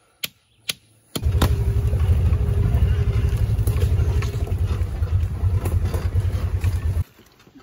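A couple of sharp hammer taps on a fence staple, then, about a second in, a utility vehicle driving along with its engine running as a loud low rumble that stops suddenly near the end.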